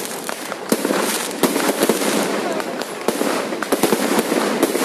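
Fireworks going off: a rapid string of sharp bangs, several a second, over a steady crackling hiss.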